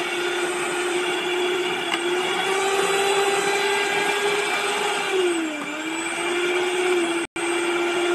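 Electric motor of a Russell Taylors stand mixer running with no load, beaters spinning in an empty stainless bowl: a steady whine whose pitch rises a little about two seconds in and dips briefly about five and a half seconds in as the speed dial is worked. The sound drops out for an instant near the end.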